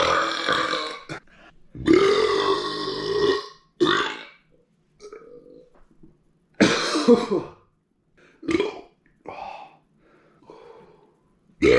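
A person belching loudly several times in a row, the longest belch lasting about two seconds, followed by a few shorter, weaker burps.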